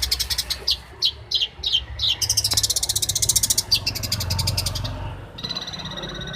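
Long-tailed shrike singing a varied song of fast, harsh chattering rattles and short downslurred notes. Near the end it switches to a steady, evenly pulsed buzzing trill.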